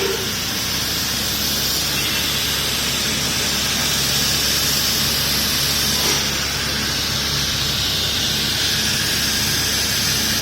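Automatic welding machine welding a thin stainless steel kettle spout: a steady loud hiss of the welding arc over a low machine hum.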